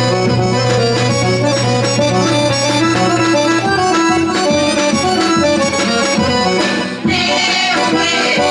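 Accordion playing a Bulgarian folk tune. A low held bass note stops a little under halfway through, and the playing breaks off for a moment near the end before going on.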